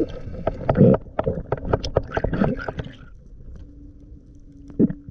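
Muffled underwater rushing and irregular knocks and clicks, as picked up by a camera in its underwater housing while a spearfisher moves in the water. The noise eases off about three seconds in, leaving a faint steady hum with a few scattered clicks.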